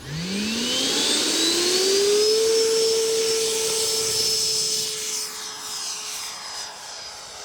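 12S electric ducted fan of an HSD SuperViper RC jet spooling up to full power for takeoff: a whine that rises in pitch over about two seconds, holds steady, then grows quieter near the end.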